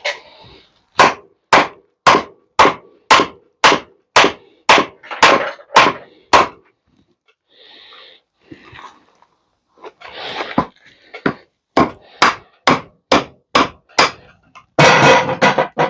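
Hammer blows knocking parts off a metal range hood during scrapping: a run of about a dozen strikes at roughly two a second, then after a pause a second run of about five. Each strike has a short metallic ring, and a longer rattle of metal comes near the end.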